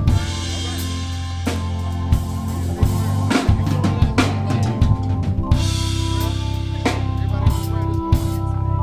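Band music: a drum kit playing a steady beat with bass drum and snare over held chords and a low bass line.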